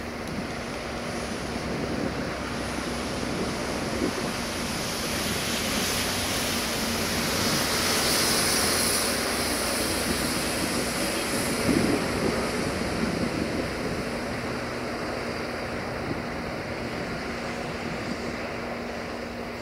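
060-DA (LDE2100) diesel-electric locomotive with a Sulzer 12LDA28 V12 engine approaching slowly at the head of a tanker train. The diesel runs steadily under the wheel and rail noise, swelling gently as it nears, with a brief louder knock about twelve seconds in.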